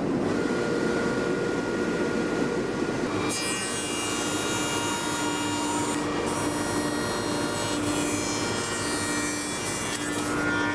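H1763 spindle moulder running with a straight cutter. From about three seconds in until near the end, the cutter cuts a rebate along a wooden board, adding a dense, high cutting noise over the steady machine sound, which then returns to free running.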